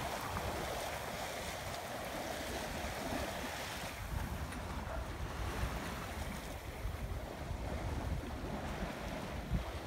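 Wind buffeting the microphone in uneven gusts over a steady rush of water past the hull of a 1968 C&C Redwing 30 sailboat under sail, at about 7 knots.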